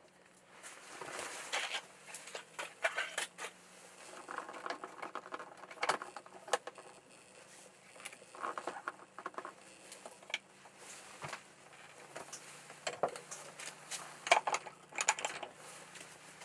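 Irregular light clicks, taps and scraping rustles, like small objects being handled.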